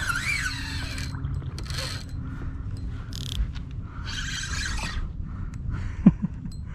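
Spinning reel cranked in short bursts, a lure being retrieved, over a steady low rumble. A single sharp knock comes about six seconds in.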